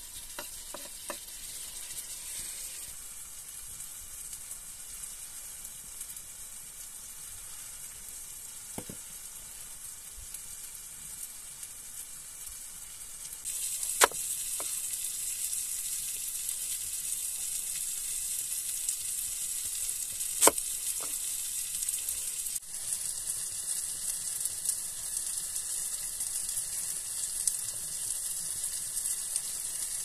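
Tomatoes and peppers sizzling in a frying pan over wood coals: a steady high frying hiss that gets louder about halfway through. A few sharp knocks stand out above it.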